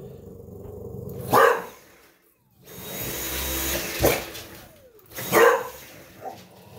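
English bulldog barking three times at a vacuum cleaner. Between the barks the vacuum cleaner's motor starts up, runs briefly and winds down with a falling whine.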